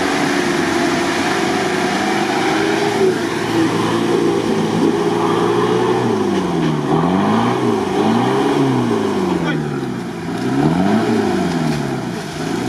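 Toyota Land Cruiser 70-series engine working hard in deep mud, held at high revs at first. From about halfway it is revved up and down again and again, about once a second, as the bogged-down truck rocks for grip.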